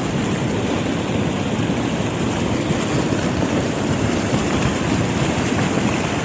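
Hot volcanic mudflow (lahar) from Semeru surging over boulders: a loud, steady rushing noise.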